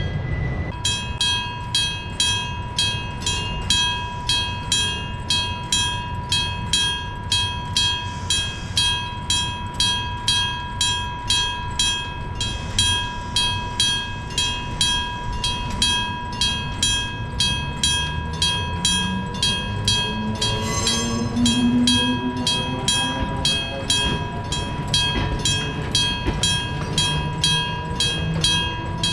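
Electric-bell-type railway level crossing bell ringing in a fast, even rhythm. A train with nose-suspended traction motors runs through, its motor whine rising in pitch from about two-thirds of the way in.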